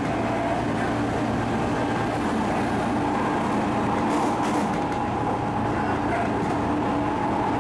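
Running noise heard inside an Odakyu 2000 series commuter train car moving at speed, a steady rumble with humming tones. For the first few seconds a train going the other way passes close alongside.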